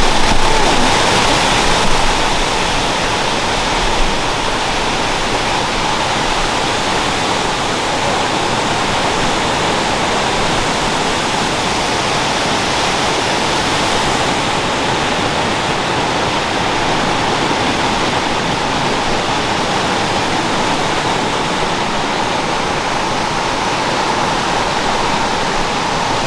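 Waterfall pouring steadily, an even rushing roar of falling water.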